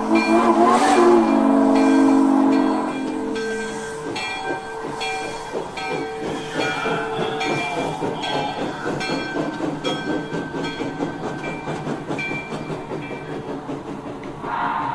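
Sound system of a Broadway Limited model NYC J-1e Hudson steam locomotive: a chime steam whistle is blown for about the first four seconds. Then steady exhaust chuffing with hiss follows.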